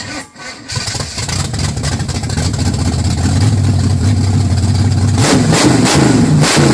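A carbureted V8 swapped into a Datsun 240Z is started and catches within the first second, then runs at idle. Near the end the throttle is blipped by hand at the carburetor several times, and the revs rise and fall quickly each time.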